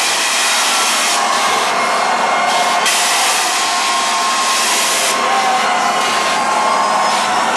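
Loud, harsh wash of dance-club sound, the music and crowd heard as a dense steady hiss with no bass, changing in tone abruptly about one, three and five seconds in.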